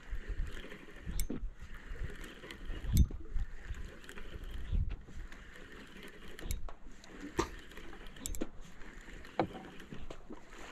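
Water lapping against a small boat's hull and wind buffeting the microphone in gusts, with a few scattered light clicks and knocks from the boat and fishing gear.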